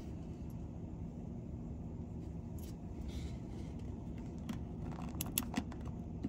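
Steady low rumble of a car driving, road and engine noise, with a few light clicks a little after five seconds in.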